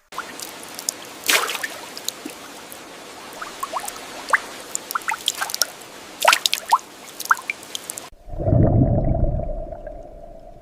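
Water splashing and dripping: a steady hiss with many sharp droplet plinks. About eight seconds in it cuts off abruptly into a low, muffled rumble that fades.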